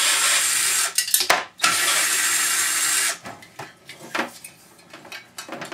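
Power drill running in two bursts of about a second and a half each, backing screws out of the dish's rear panel, then a few light metal clicks and knocks as parts are handled.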